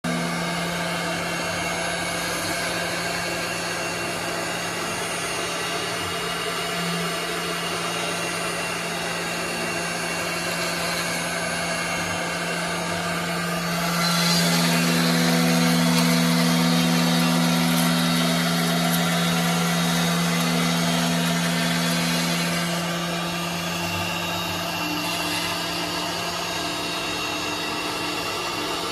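A multi-axis CNC router's spindle runs at steady speed, a constant hum with a hiss, as its long bit carves an EPS foam block. Around the middle the sound grows louder and hissier for several seconds, then drops back to the earlier level.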